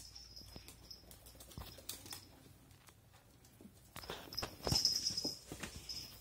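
Faint tapping and scuffling of a puppy moving about on a hard floor, growing into louder knocks and rustles from about four seconds in, with a brief high squeak around five seconds.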